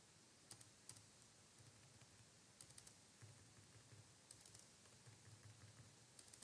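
Faint computer keyboard typing: about five short bursts of a few quick keystrokes each, spaced a second or so apart.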